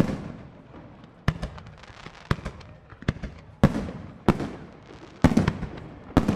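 Professional aerial firework shells, up to 4-inch, launching and bursting: about a dozen sharp bangs at irregular intervals, each trailing off in a rolling echo, with the densest, loudest volley a little past the halfway point.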